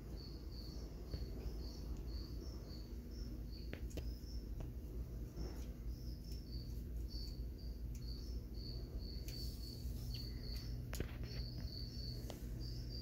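Feeder crickets chirping: short high chirps, two or three a second, over a low steady hum, with a few faint clicks.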